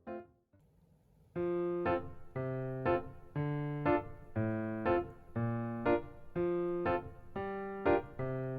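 Background piano music. It drops out briefly just after the start, then comes back about a second and a half in with evenly paced notes.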